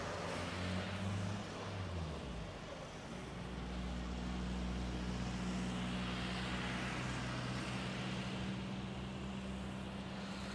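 Jet engines of an Airbus A320-family airliner on its landing roll just after touchdown, heard from beside the runway: a steady drone with a low hum under it. The drone swells through the middle of the roll.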